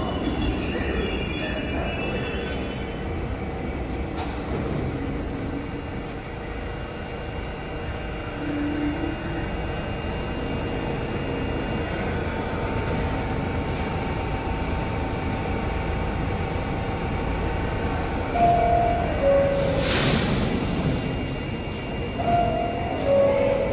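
IRT subway train (R62 cars) braking into the station with wheels squealing, the squeal fading over the first few seconds as it stops. It then stands with its equipment humming steadily. About 20 s in there is a short burst of air hiss, and twice near the end a falling chime, the door-closing chime.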